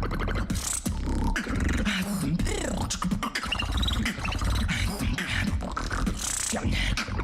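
Beatboxing: a mouth-made deep bass runs under rapid clicks, with sharp hissing snare-like bursts near the start and near the end.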